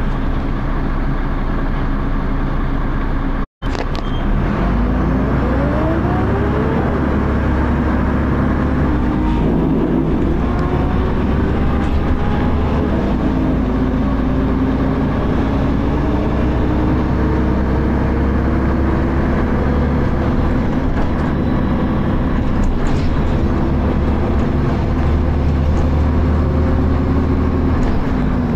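Dennis Arrow double-decker bus's diesel engine running, then pulling away about four seconds in: the engine note rises as the bus accelerates through its ZF automatic gearbox, then holds steady and climbs slowly. The audio cuts out briefly just before the bus pulls away.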